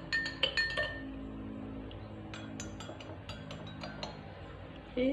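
A metal spoon stirring a drink, clinking lightly and irregularly against its container a dozen or so times.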